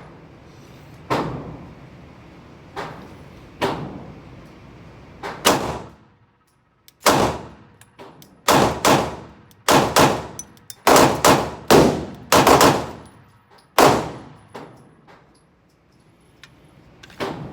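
Glock 45 Gen 5 9mm pistol firing about fifteen shots at an uneven pace. The first several seconds bring spaced single shots, then after a short pause come quicker strings of shots, which thin out near the end.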